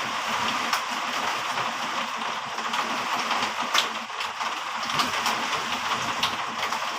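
Heavy rain falling steadily, with frequent sharp ticks of drops striking a surface.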